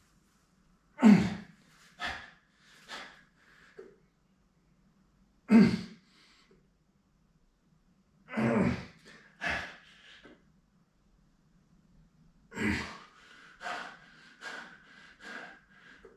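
Sharp, forceful puffs of breath, about a dozen at irregular intervals, each dying away quickly, over a faint steady low hum.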